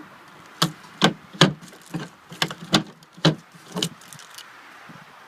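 A series of about nine sharp knocks and bangs, irregular at roughly two a second.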